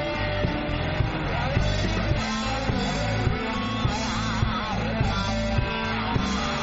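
A blues-rock band playing live, with a steady drum beat under the full band and a lead line of wavering, bending notes.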